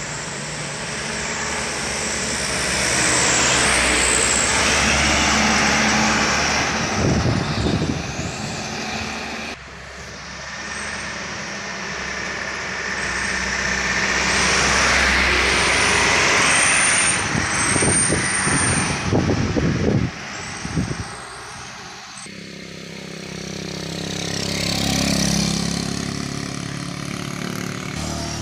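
Fully loaded diesel trucks passing close by, one after another, each engine growing louder as it approaches and then fading. A thin high whistle sounds during the loudest pass. Near the end, lighter motorcycle engines pass more quietly.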